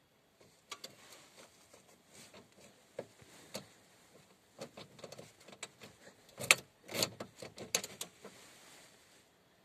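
Handling noise in a van cab: irregular clicks, taps and rustles from a hand working around the steering column and ignition key, loudest about six and a half to seven seconds in. No engine is running.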